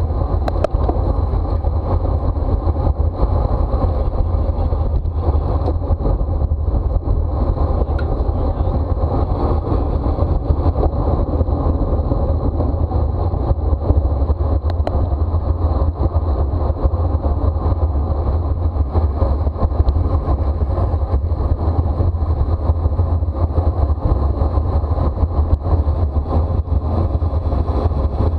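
Steady wind rumble on a bicycle-mounted camera's microphone while riding fast in a road race, with tyre and road noise underneath.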